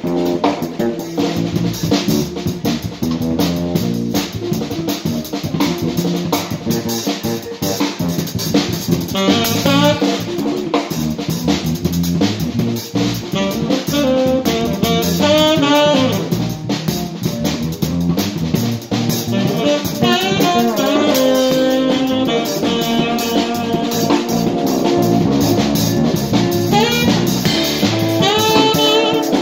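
A live band playing an upbeat instrumental, the drum kit close and loud with cymbal and drum hits, under electric guitar and a wavering lead melody that comes in about a third of the way through.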